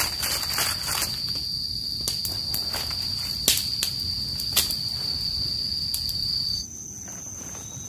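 Steady high-pitched insect drone in the forest, with crackles of dry leaves as a hand works through the leaf litter, including two sharp snaps about three and a half and four and a half seconds in. Near the end the drone gives way suddenly to a slightly higher insect tone.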